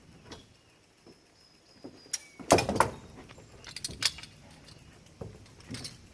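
Metal hooks and ratchet hardware of a tie-down strap clanking and rattling as a trailer load is strapped down. The loudest cluster of clanks comes about two and a half seconds in, with a few lighter knocks later.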